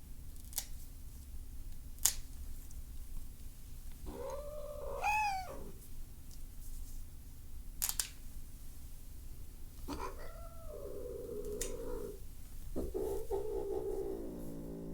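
Domestic cat yowling angrily while its nails are clipped: three drawn-out cries, the last one long and low. Between the cries come about five sharp clicks of the nail clipper.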